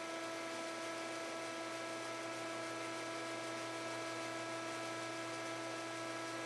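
Steady electrical hum with a hiss and several fixed tones, starting abruptly just before and holding unchanged throughout.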